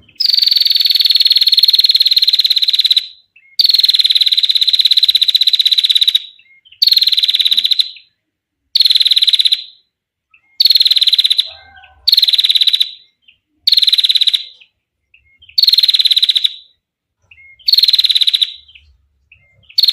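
Female prinia (prenjak) giving its long, rapid buzzing trill ('ngetir'), repeated about nine times with short pauses between. Each trill holds a steady pitch for one to three seconds, and the first two are the longest.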